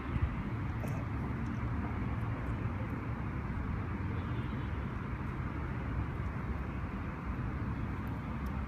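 Steady low background rumble, even throughout, with a couple of faint ticks near the start.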